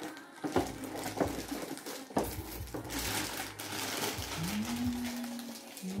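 Unboxing handling noise: knocks of the robot vacuum against its foam packing and cardboard box, then the rustle of its plastic bag as it is lifted out. A short low hum rises and holds for about a second near the end.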